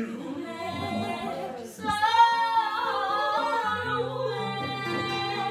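Women singing a slow melody with long held, wavering notes, over low held backing notes that change pitch in steps.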